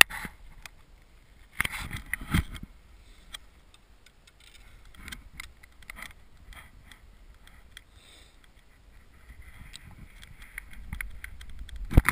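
Handling noise from an action camera strapped to a recurve bow's grip: rubbing, with scattered clicks and knocks as an arrow is nocked and a louder clatter about 2 seconds in. Near the end a sharp, loud snap as the bowstring is released.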